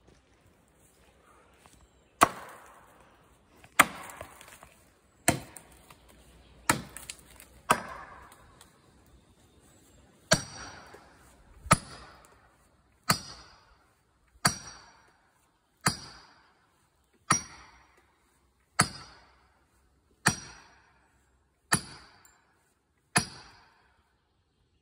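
Sledgehammer blows struck at a steady pace, about fifteen in all, roughly one every second and a half. The later blows ring with a metallic note.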